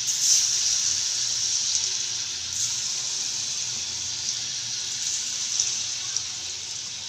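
Pakoras frying in hot oil in a steel kadai: a steady high sizzle, with brief crackling flares as fresh spoonfuls of batter drop into the oil.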